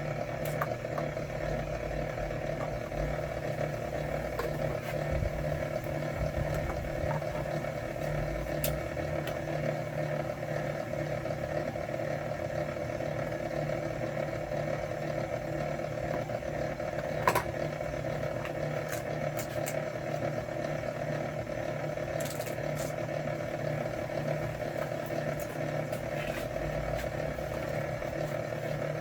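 Electric wire stripping machine running with a steady hum and light clatter, with one sharp click about seventeen seconds in.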